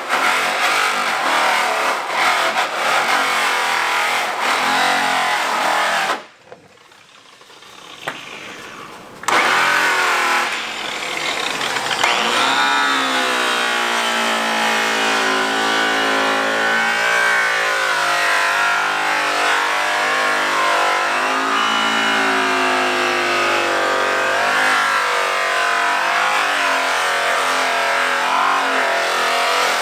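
Electric buffers polishing aluminum truck wheels, their motors whining steadily with the pitch rising and falling as the buffs are pressed on and eased off. About six seconds in they go quiet for roughly three seconds, then start up again.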